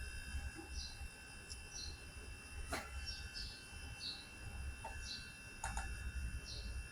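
Faint bird chirps: short high calls about once a second, with a couple of light clicks in between.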